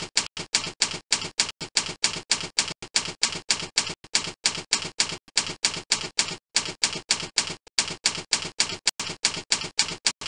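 Typewriter sound effect: an even run of sharp key clacks, about five a second, with a couple of brief breaks, accompanying text being typed onto a slide.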